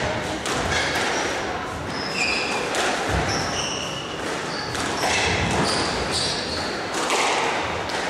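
Squash rally: the ball smacks off rackets and the walls about once a second, and shoes squeak in short high chirps on the court floor. The hall rings a little, over a steady murmur from the crowd.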